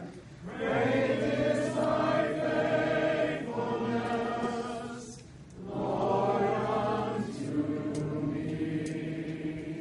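A group of voices singing together in long held phrases, with a short break for breath about five seconds in. The singing fades near the end.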